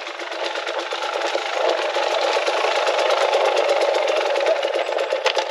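Enduro dirt bike engine running hard, growing louder over the first two seconds and then holding steady, with a rapid, rattly firing pulse.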